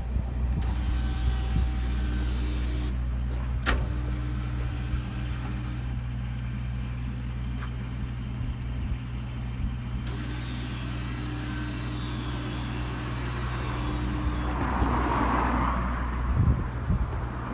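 Automatic electric bollard rising out of the ground under its own motor, over a steady low engine hum.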